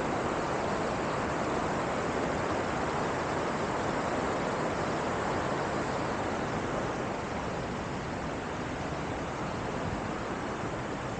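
Waterfall: a steady rush of falling water, easing a little about two-thirds of the way through.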